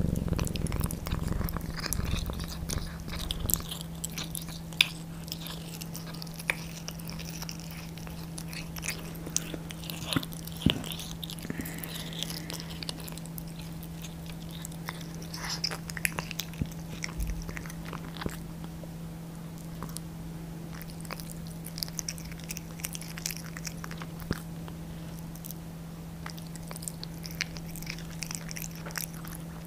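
Devon Rex cat chewing and biting raw duck gizzard, giving wet clicks and crunches at uneven intervals, the tough gizzard hard for it to chew through. A low purr fades out in the first few seconds.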